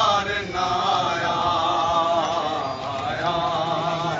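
Men chanting a noha, a Shia mourning lament, in a steady sung melody.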